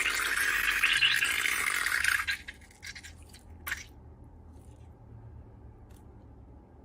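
Slime being pressed and worked by hand, a dense crackling crunch for about two seconds. A few soft clicks and one sharp click follow.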